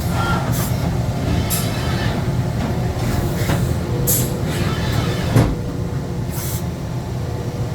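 Steady low rumble of running shop machinery, with several short high hissing bursts and a single knock about five and a half seconds in.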